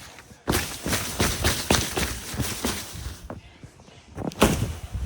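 Footsteps crunching in snow: a quick run of steps, then a few louder ones near the end.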